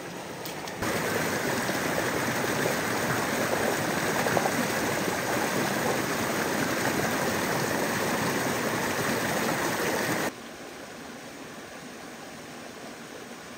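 Shallow mountain stream running over rocks and a small cascade, loud and close. About ten seconds in it drops abruptly to a quieter, steady flow.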